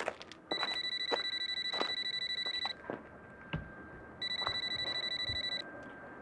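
Mobile phone ringtone: a high electronic trill pulsing rapidly, in two rings of about two seconds and a second and a half. It is an incoming call, answered right after.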